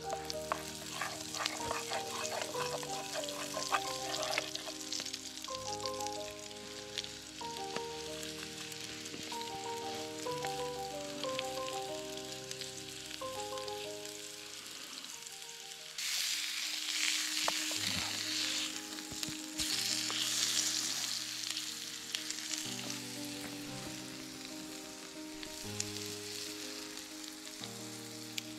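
Ground-beef hamburger patty sizzling as it fries in a small pan over a campfire, with a wooden spoon scraping the pan in the first few seconds. The sizzle gets louder about halfway through. Background music with a gentle melody plays throughout.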